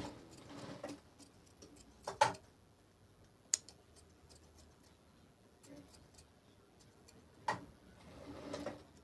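Scissors snipping through fabric, trimming off excess seam allowance: scattered quiet clicks with a few louder, sharper snips.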